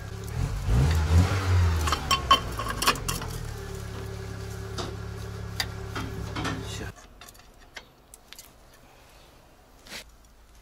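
Volkswagen Passat engine running, revved once about a second in; it is misfiring on one cylinder since the engine was washed. The hum stops abruptly about seven seconds in, with metal tool clinks on and off.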